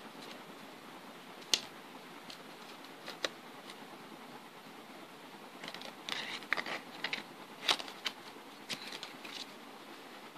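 Close handling noise of playing cards and hands on a mat: a couple of sharp clicks early, then a run of clicks, taps and rustles in the second half, loudest about three-quarters of the way through, over a steady hiss.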